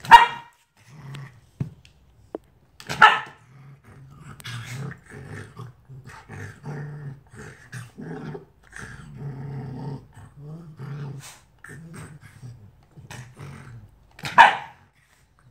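Arctic fox giving loud, shrill open-mouthed screams at a Shiba Inu, three times: at the start, about three seconds in, and near the end. Low growling and chatter run between the screams.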